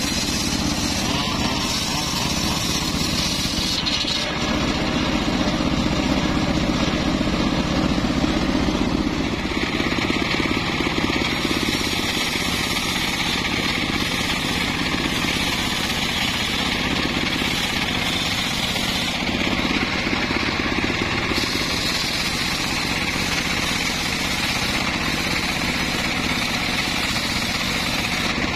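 Homemade circular sawmill's large blade ripping lengthwise through a mahogany log under load, a loud, continuous mechanical sawing noise whose tone shifts a few times as the cut goes on.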